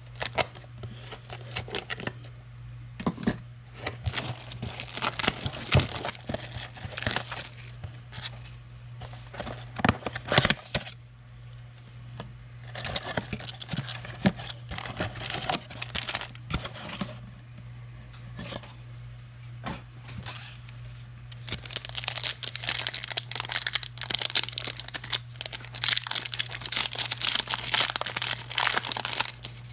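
Trading-card pack wrapper being torn open and crinkled, with the cards handled: irregular crackling and clicking, densest in a stretch around the middle and again through the last third. A steady low hum runs underneath.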